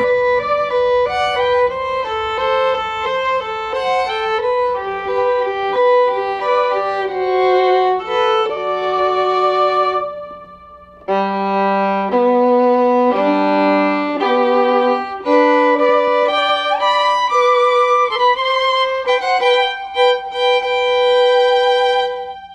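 Instrumental music with a violin playing a slow, lyrical melody of held notes, breaking off briefly about ten seconds in before continuing.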